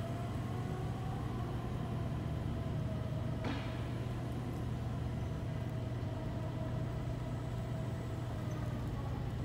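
Battery-electric Crown reach truck driving and turning on a warehouse floor: a steady low hum with a faint steady whine above it. There is one sharp click about three and a half seconds in.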